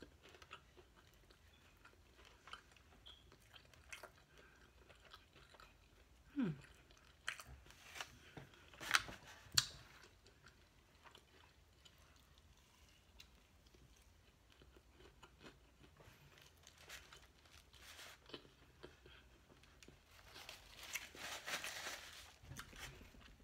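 Faint chewing and biting of a chicken breakfast sandwich close to the microphone. A few sharper crunches and mouth clicks come between about 6 and 10 seconds in, and a short rustle comes near the end.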